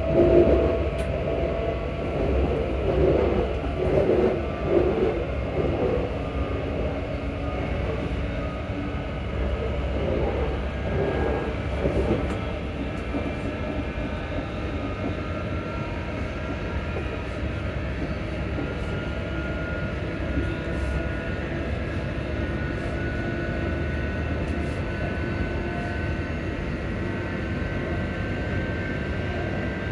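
ScotRail Class 334 electric train heard from inside the carriage while it runs: steady running rumble with the traction motors' whine, a tone that climbs slowly in pitch through the second half as the train gathers speed. A few louder bursts of noise come in the first few seconds.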